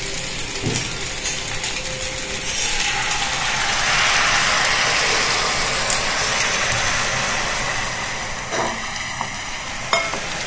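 Jaggery syrup poured into hot oil and rice flour in a nonstick frying pan, sizzling, while a wooden spatula stirs and scrapes the mix. The sizzle swells about four seconds in and dies down after about eight seconds, with a few sharp clicks near the end.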